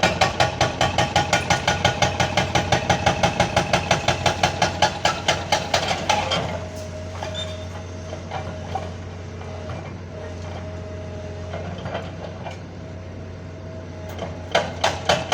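A backhoe at work demolishing a building: a fast, even metallic hammering of about seven blows a second for roughly six seconds. Then the engine runs on steadily with a held hum, and the hammering starts again near the end.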